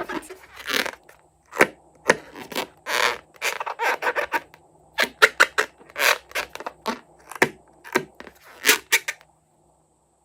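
Close-up handling sounds of slime making: irregular sharp clicks, crackles and short scrapes of sticky slime and materials being worked. They stop abruptly about nine seconds in.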